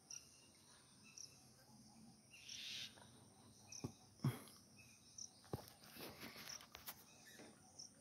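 Faint outdoor ambience: a few short, distant bird chirps over a steady high insect hum, with a few small clicks.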